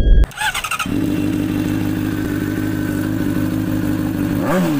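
Motorcycle engine idling steadily, with one quick throttle blip near the end, the pitch rising and falling.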